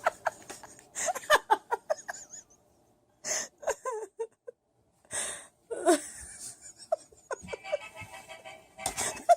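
Light background music that stops about two seconds in. A few short breathy vocal sounds follow, then the music returns for the last few seconds.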